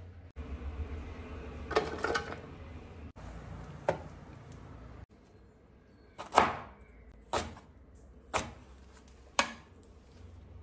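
Chef's knife chopping on a cutting board: single sharp knocks, a few scattered in the first half, then four evenly spaced about a second apart in the second half as a piece of ginger is sliced.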